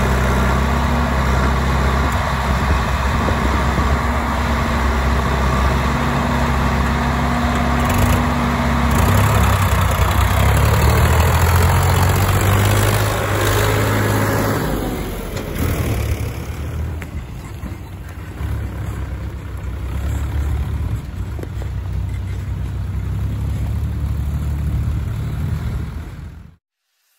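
Diesel engines of a Powertrac Euro 47 tractor and a JCB 3DX backhoe loader running under load as the tractor drags a sand-loaded trailer through mud. The engine note swells for several seconds around the middle, then settles into a steadier, duller running sound before cutting off suddenly near the end.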